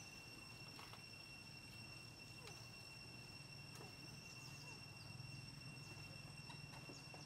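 Quiet outdoor ambience: a faint, steady, high cricket-like insect trill, with scattered faint clicks and a few short chirps.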